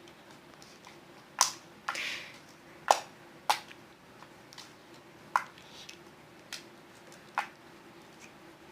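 Homemade glue slime being squeezed and stretched by hand, giving sharp clicking pops at irregular intervals, about six in all, with a short squishy rustle about two seconds in.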